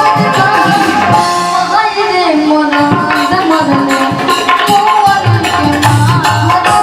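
Instrumental passage of a Bhojpuri folk song played live: tabla keeping a rhythm under a melody line that slides up and down in pitch.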